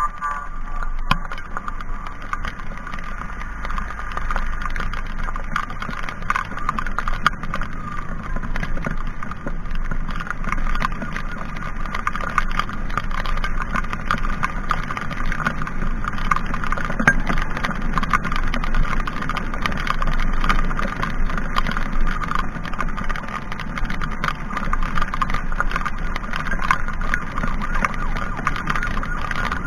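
Motorcycle riding through heavy rain: dense pattering of raindrops on the camera over wind and engine noise, with a steady siren tone.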